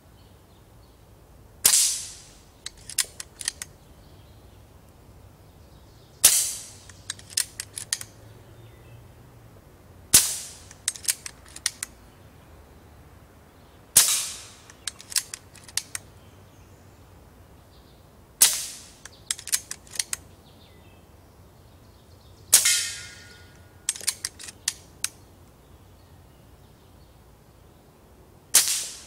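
Diana Stormrider Gen 2 pre-charged pneumatic air rifle with a silencer, fired seven times about every four seconds. Each shot is a sharp crack, followed about a second later by a few quick metallic clicks of the bolt being worked to load the next pellet.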